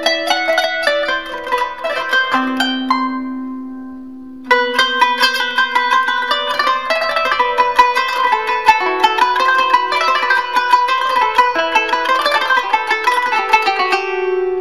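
Solo kanun (Turkish plucked zither) playing a taksim, an unmetered improvisation: quick plucked runs that settle on one low note left to ring and fade, then pick up again in dense runs about four and a half seconds in.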